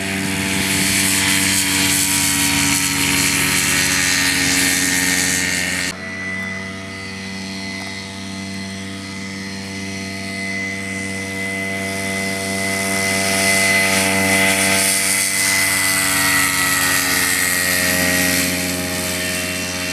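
Belite Dragon ultralight airplane's engine and propeller running during its takeoff roll, a steady drone with a high whine on top. It drops off abruptly about six seconds in, then grows louder again as the plane comes closer and lifts off near the end.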